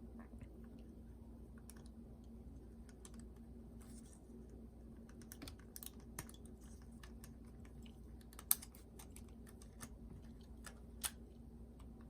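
Scattered light clicks and taps of small parts and tools being handled on a portable cassette player, with two sharper clicks about eight and eleven seconds in, over a faint steady hum.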